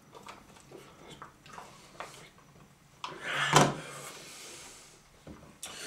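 Plastic spoons clicking and scraping against plastic sundae cups in quick, small taps, with a loud rush of breathy noise about three seconds in.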